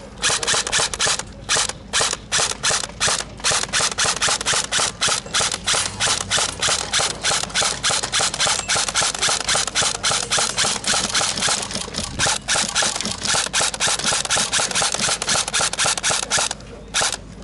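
Airsoft electric gun (AEG) firing: a long run of sharp shots, several a second, broken by brief pauses about a second and a half in and again near the end.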